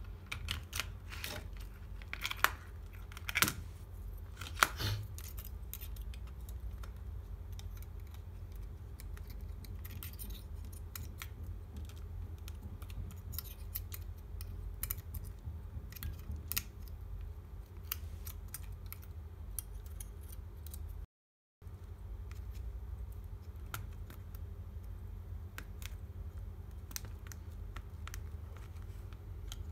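Small sharp clicks and taps from handling an opened iPhone 6s, its parts and flex connectors being pressed into place on the logic board by hand, over a steady low hum. The loudest clicks come in the first few seconds.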